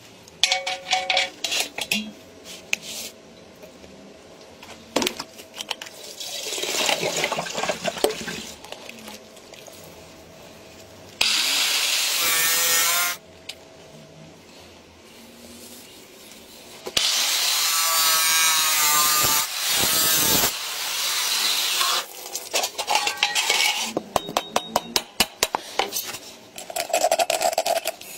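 A run of metalworking sounds: steel bolts clattering in a plastic parts bin at the start, then two loud bursts of a power tool cutting metal, about two and three and a half seconds long. Quick runs of clicks and taps come near the end.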